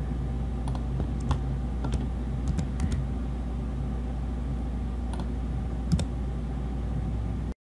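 Scattered clicks of computer keyboard keys and a mouse, about eight over several seconds, over a steady low hum. The sound cuts off suddenly near the end.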